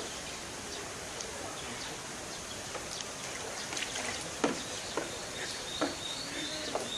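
Sun bear pawing and nosing at water in a shallow plastic tray, giving small splashes and a few sharp knocks of the tray in the second half over steady outdoor background noise.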